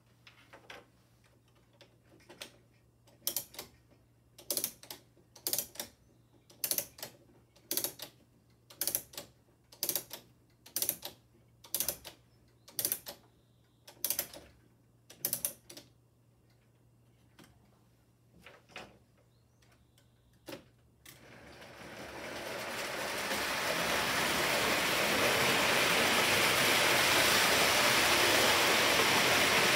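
Clockwork motor of a Hornby wind-up 0-4-0 toy locomotive being wound, its ratchet clicking about once a second, with a few slower clicks near the end of the winding. About twenty seconds in, tinplate toy trains start running on O27 track, a steady rushing rattle that builds over a couple of seconds.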